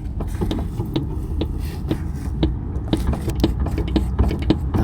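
A Jeep Grand Cherokee rumbling low, with repeated short clunks and knocks, about two a second at uneven spacing, from a noisy shock mount.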